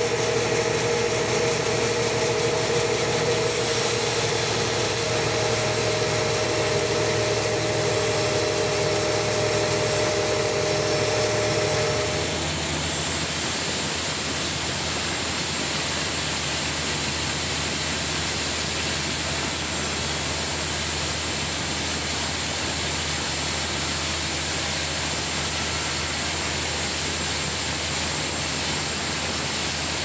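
Band sawmill running and cutting lengthwise through a large trembesi (rain tree) log: steady machine noise with a low motor hum. A steady whine carries for the first twelve seconds or so, then stops abruptly, leaving a slightly quieter, even running noise.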